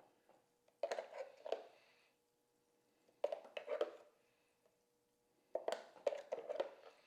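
Pancake batter being stirred in a bowl, in three short spells of scraping and clinking.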